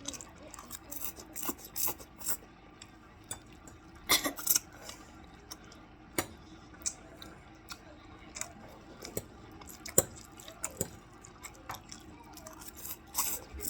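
Eating sounds from spaghetti and hot dogs being eaten: scattered wet clicks and smacks of chewing, with a few louder clicks around four seconds and ten seconds in.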